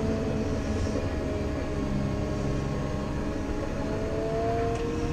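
Diesel engine of a wheeled earthmoving machine running steadily under way, heard from inside the cab, with a steady two-note whine over the engine rumble.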